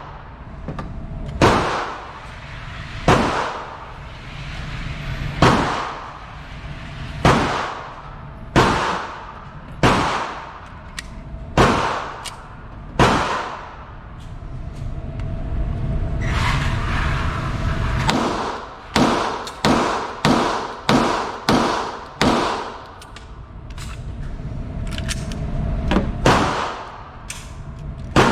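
Pistol shots fired one at a time, about every one and a half to two seconds, then a quicker string of about six shots roughly half a second apart, and two more near the end; each shot echoes briefly.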